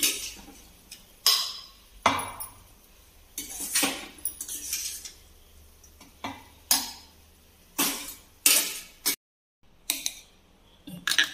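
Metal spatula clinking and scraping against a kadhai and a steel mixer jar as cooked onion-tomato mixture is scooped across: about a dozen uneven knocks and scrapes.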